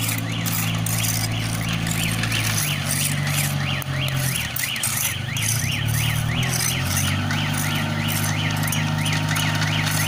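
Self-loading concrete mixer's diesel engine running as the machine moves, its pitch shifting a few times, with an electronic warning alarm sweeping up and down about three times a second over it.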